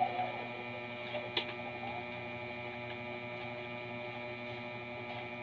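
Steady electrical hum made of several fixed tones, with a faint click about a second and a half in.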